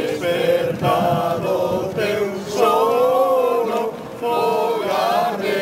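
A group of people singing together in unison, holding long sung notes, with a short break about four seconds in.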